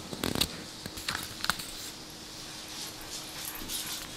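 Sheltie puppy making a few brief, soft whimpers as it tugs on a toy in play.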